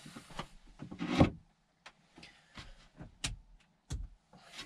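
Handling noise: scattered sharp clicks and knocks as things are moved about, with one louder knock and rustle about a second in and a short hiss near the end.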